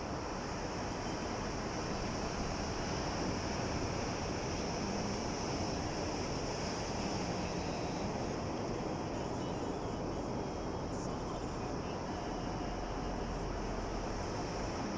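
Sea waves washing ashore in a continuous rush that swells slightly a few seconds in, with a steady high hiss above it.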